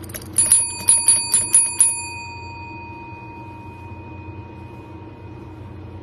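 Chrome desk service bell struck by a cat's paw: about six quick dings in under two seconds. Its ring then fades slowly over the next few seconds.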